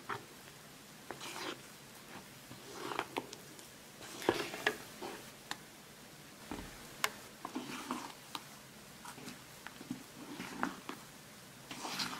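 Silicone spatula folding meringue into thick pancake batter in a mixing bowl: soft, irregular wet squelches and scrapes, with a few light clicks of the spatula against the bowl.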